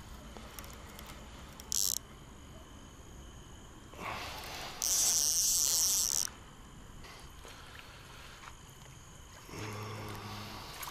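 Crickets chirping: a steady high insect trill throughout, with a brief louder burst about two seconds in and a louder, longer trill in the middle. A short low hum near the end.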